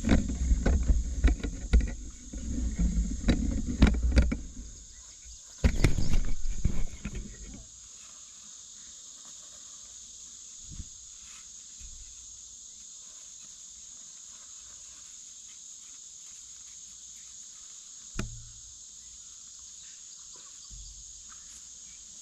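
Crickets or other insects chirring steadily in a high, even chorus. For the first seven seconds or so there is loud, low rumbling and rustling with clicks close to the microphone, with a short break about five seconds in; later only a couple of faint knocks.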